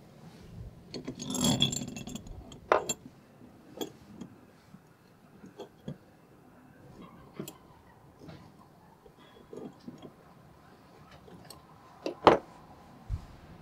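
Steel parts of a small bench vise being handled and fitted together by hand, the spring-wrapped lead screw going into the movable jaw: scattered metallic clicks and clinks. A scraping rattle comes about a second in, and the sharpest clink comes near the end.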